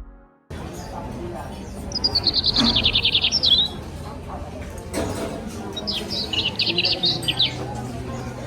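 A songbird singing two rapid trills, each lasting a second or two, a few seconds apart, over a steady low background hum.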